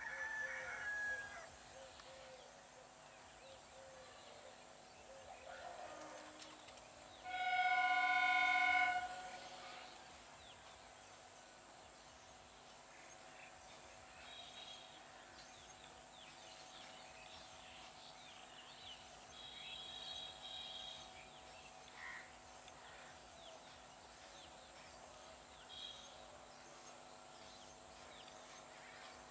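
Electric local train (EMU) horn sounding one steady, pitched blast of about two seconds, a few seconds in. Faint outdoor ambience with scattered short chirps fills the rest.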